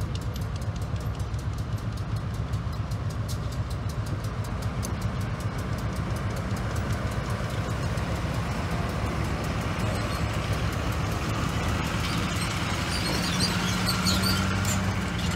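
GE B36-7 diesel locomotive idling with a steady low hum, its V16 engine running at rest. A road vehicle drives past near the end, adding to the noise.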